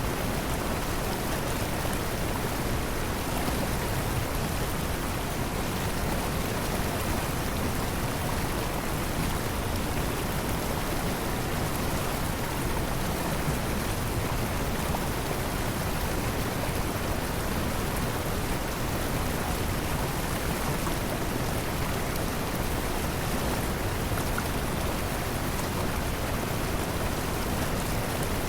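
Large waterfall pouring over a rocky cliff face: a steady, unbroken rush of falling water.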